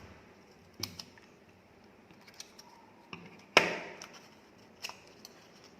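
Hand work on a paper strip: scattered sharp snips and clicks of scissors cutting paper, with one louder knock about three and a half seconds in.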